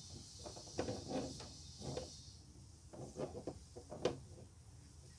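Light handling noises of a plastic trim piece being wiped with a foam applicator: a scattering of short taps and rubs, the sharpest about four seconds in.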